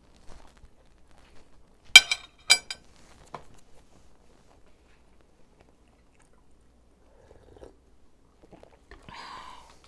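Close-miked crunching bites of crispy fried chicken: two sharp crackling crunches about half a second apart, then faint chewing. Near the end, a short sip from a coffee mug.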